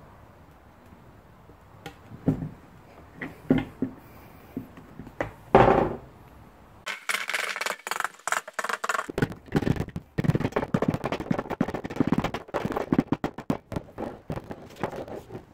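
A few separate knocks and handling sounds, then from about halfway through a long run of quick, rapid taps from a tape-wrapped mallet on the newly re-covered vinyl lawn mower seat.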